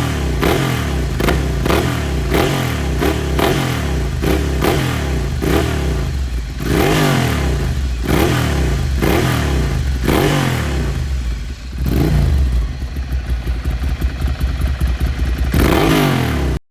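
Ducati Monster 696's air-cooled L-twin revved again and again through a Termignoni exhaust: quick throttle blips rising and falling in pitch, with crackles and pops as the revs drop. Toward the end the revs are held higher with a fast pulsing beat, then the sound cuts off suddenly.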